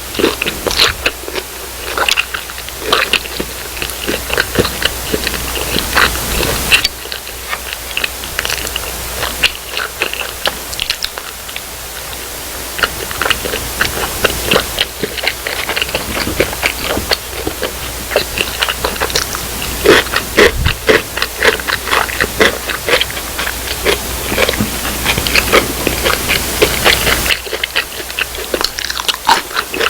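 A person biting and chewing crispy fried food, with many sharp, irregular crunches.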